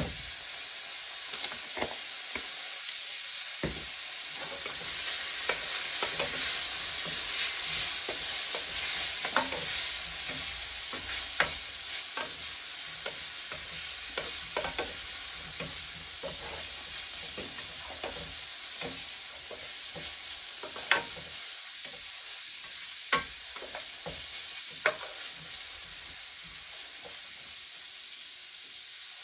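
Chopped vegetables sizzling in oil in a stainless steel frying pan, with the scrape and clack of a utensil stirring them against the pan. A steady frying hiss runs under scattered small taps, with a few sharper knocks in the second half.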